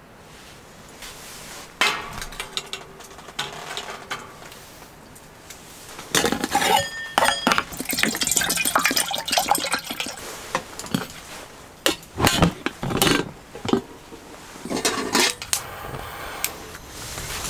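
Cups and dishes being handled, with irregular clinks and knocks that start about two seconds in and get busier from about six seconds on.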